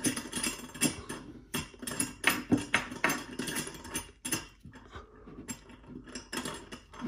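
A metal wing nut being spun by hand up a threaded bolt, with the loose steel mounting plate of the Huanuo HNDS6 monitor stand rattling on the bolt: irregular small metallic clicks and clinks, one or two a second.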